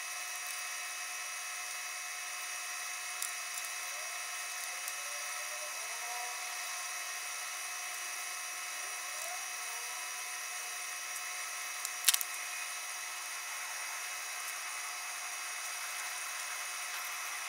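Cordless butane soldering iron hissing steadily while its hot tip shrinks heat-shrink tubing over a soldered sensor wire. One sharp click about twelve seconds in.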